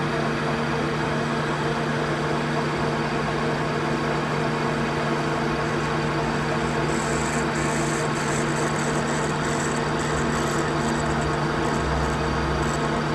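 Machine tool running steadily with a constant motor hum, machining a Delrin part; from about halfway through, irregular high scratchy crackles from the cutting come in over the hum.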